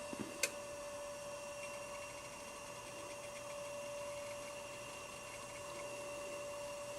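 Macintosh Portable's internal hard drive spun up and running: a faint, steady whine over a light hiss, with a single click about half a second in.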